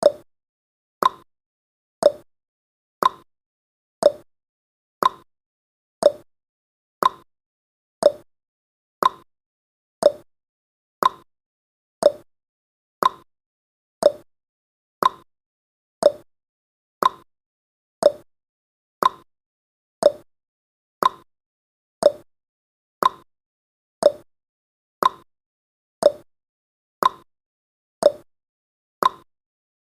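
Clock-tick sound effect of a countdown timer, one short, sharp tick each second, marking the seconds as the countdown runs.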